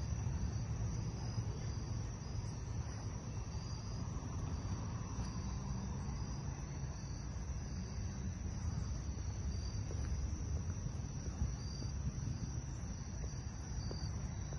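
Crickets chirping in a steady night chorus, short high pulses repeating over a constant high trill, with a low rumble underneath.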